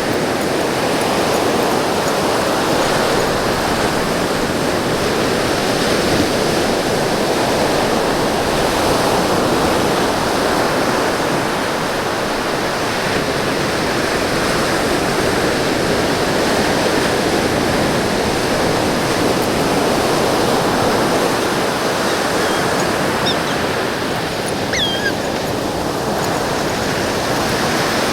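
Ocean surf washing onto a beach, a steady rushing noise with no let-up, with a few faint high chirps near the end.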